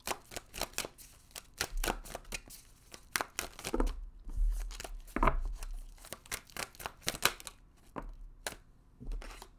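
A tarot deck being shuffled and handled by hand: a quick, irregular run of card flicks and slaps, with a few duller taps.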